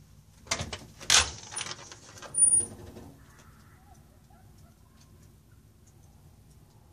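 A glass storm door being unlatched and swung open: a few short clattering clicks and rattles in the first three seconds, the loudest near the end of them with a brief high-pitched squeak.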